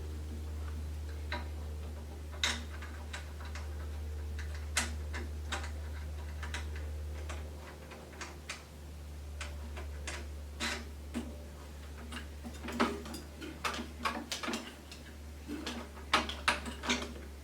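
Irregular clicks and light knocks of electric tiller parts being handled and fitted together by hand, sparse at first and coming thick and fast in the second half, over a steady low hum.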